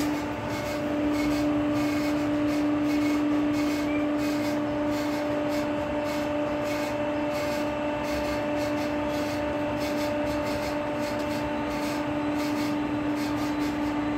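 Hydraulic collar and cuff cutting machine's power-pack motor and pump running steadily, a constant hum over an even hiss.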